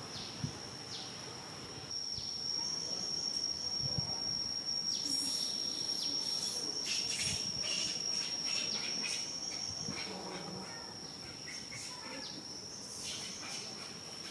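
Insects droning in one steady high tone, with scattered short crackling clicks, thickest from about five to nine seconds in and again near the end.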